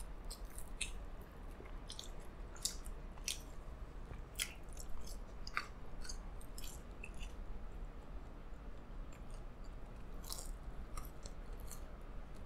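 Chewing and biting breaded fried chicken, with scattered crisp crackles as the crunchy coating is torn and bitten.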